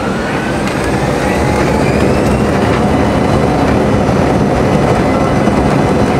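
Embraer E170 jet on its takeoff roll, heard from the cabin over the wing: its GE CF34 turbofans spool up to takeoff power, with a whine that rises in pitch over the first couple of seconds. Underneath is a loud, steady rumble of engine and wheels as the jet accelerates down the runway.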